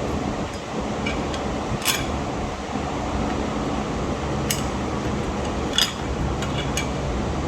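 A handful of light metallic clicks and clinks, the clearest about two and six seconds in, as a brake pad is worked into its caliper. A steady fan-like hum sits under them.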